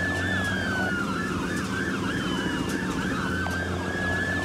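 Police car sirens during a pursuit: a slow wail rising and falling over a few seconds, overlapped by a faster yelp sweeping up and down several times a second, over a steady engine and road hum.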